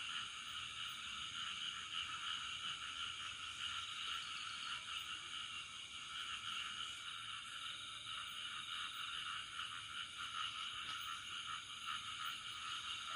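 Steady night chorus of frogs calling from a flooded rice field, a dense unbroken mass of calls.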